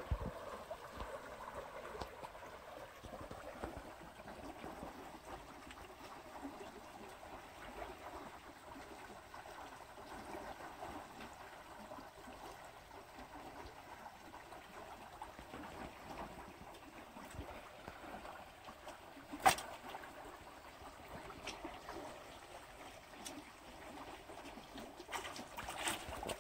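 Steady rush of flowing stream water around rocks, with one sharp click about three quarters of the way in. Near the end, splashing as a hooked baam eel is jerked up out of the water on a fishing rod.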